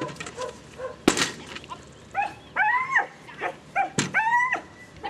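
A dog barking in two groups of high-pitched, drawn-out barks, about two seconds in and again about four seconds in. A single sharp knock about a second in is the loudest sound.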